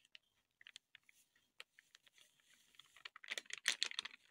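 Faint crackling and ticking of a flour packet being tipped, with flour pouring onto raw chicken pieces in a bowl; scattered ticks at first, then a denser cluster of crackles a little past three seconds in.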